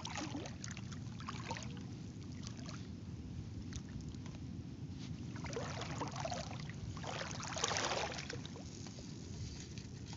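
Shallow water splashing and sloshing, with two louder splashes a little after halfway, over a steady low rumble.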